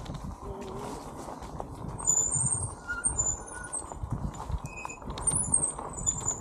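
Electric mobility scooter driving over a rough dirt and sand trail, its wheels and body thumping and rattling unevenly over the bumps.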